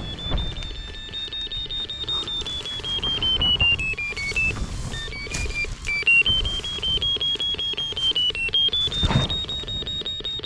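A rapid series of short electronic beeps whose pitch sinks about halfway through and climbs back up. Under it, straw and baling net rustle and scrape against a camera pushed through a hay bale, with irregular knocks.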